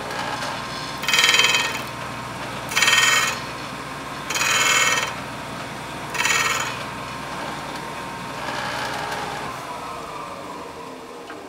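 Shopsmith's 12-inch abrasive sanding disc running with a steady hum. A steel round-nose scraper held in a sharpening guide is pressed against it in four short grinding passes, each a loud hiss of about half a second. Near the end the motor is switched off and winds down, falling in pitch.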